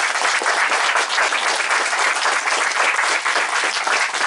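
Audience applauding: many people clapping steadily after a talk.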